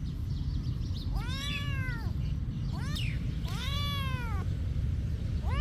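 A cat meowing repeatedly: about three drawn-out meows that rise and then fall in pitch, the first about a second in, the others just after the halfway point, with a short one between them, over a steady low rumble.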